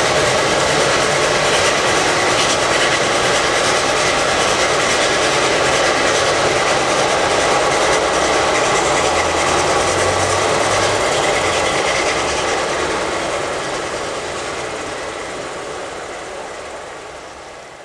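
Steam train hauled by the narrow-gauge locomotive IK No. 54 running away along the line, a steady rolling noise that fades out over the last five seconds or so.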